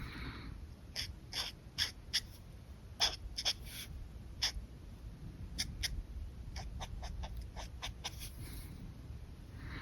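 Alcohol marker nibs working on paper: a quick series of short, sharp taps and clicks, with a brief scratchy stroke at the start and near the end.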